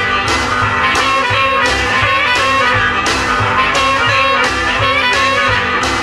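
Electric blues band recording playing, with a steady beat of drum strokes.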